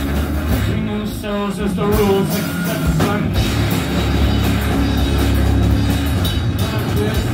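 Live rock band playing loud: distorted electric guitars over a Tama drum kit.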